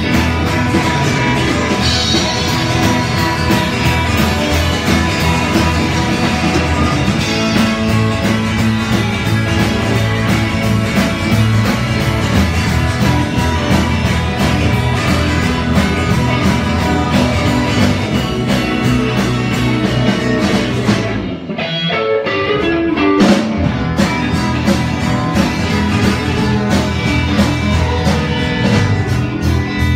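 Live rock/blues band playing: acoustic and electric guitars over a steady drum beat. A little over two-thirds in, the drums drop out briefly for a descending run of notes, then the full band comes back in.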